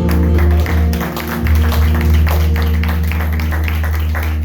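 Live church band music: held chords over a strong bass line, with a quick, steady beat of percussion hits.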